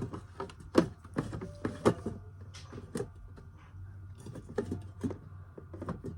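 Mini soda cans being set into a mini fridge and turned to face the same way: a string of irregular light knocks and clinks.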